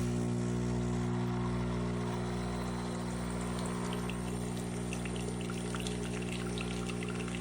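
CASABREWS 20-bar espresso machine's pump running with a steady, loud hum while liquid pours and trickles through it.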